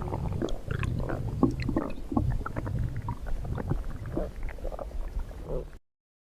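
Stomach growling: a low rumble with irregular gurgles and small pops, cutting off suddenly near the end.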